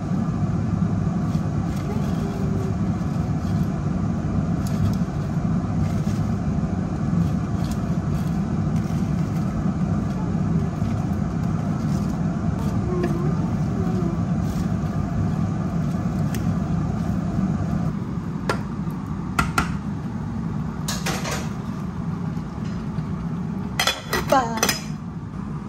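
A steady low hum runs under the sound and drops in level about two-thirds of the way through. A few light clicks follow, then a stainless steel pot lid clinks down onto the pot near the end.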